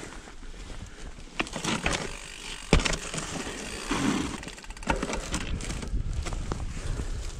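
Mountain bike coming down a rocky, technical trail: steady tyre noise, with rattling clatter and sharp knocks at uneven times from the bike jolting over rocks. The loudest knock comes a little under three seconds in.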